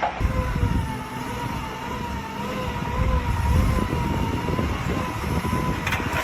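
An engine or heavy machine running with a low rumble, carrying a steady whine that wavers slightly in pitch.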